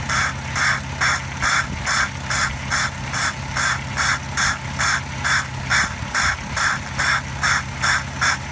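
Trigger spray bottle squirting streams of water into the open throttle body of an idling car engine, about two and a half quick sprays a second. Each spray is a short hiss as the water is sucked past the throttle plate into the intake, to steam-clean carbon from the combustion chambers. The engine idles steadily underneath.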